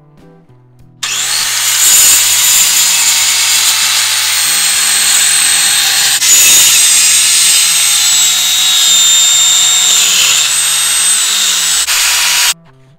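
Circular saw starting about a second in and cutting through a wooden 4x4 post, a loud steady high whine with the blade in the wood, cutting off sharply near the end.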